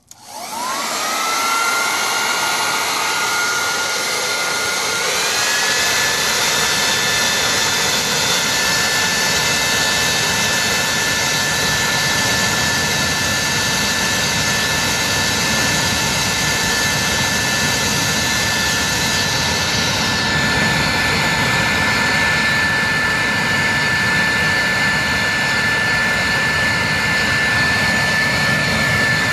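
Corded electric leaf blower switched on, its motor whine rising as it spins up and stepping higher about five seconds in, then running steadily with a loud rush of air.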